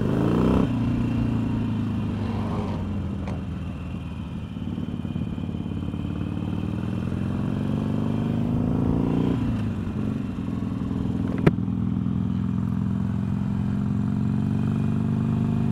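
Harley-Davidson Sportster 883's air-cooled V-twin running at low speed. Its pitch falls at the start, climbs slowly for several seconds as it pulls, drops sharply about nine seconds in, then holds steady. A single sharp click comes about eleven seconds in.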